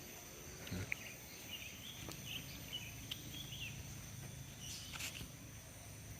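Faint rural ambience: insects trilling steadily at a high pitch, with a bird chirping softly in short bursts for a couple of seconds in the middle.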